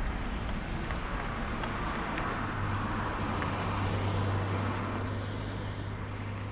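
A motor vehicle passing: a rush of tyre and engine noise that swells and fades, over a steady low engine hum that comes in partway through.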